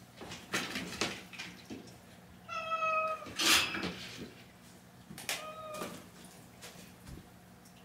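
A domestic cat meowing twice, about three seconds apart, each call steady and about half a second long, while being picked up and carried. Just after the first meow comes a short loud noise, the loudest sound here, with a few soft knocks and rustles in the first second.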